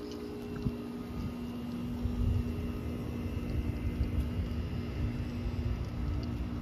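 A steady mechanical hum with a few held tones, over a low rumble of wind on the microphone.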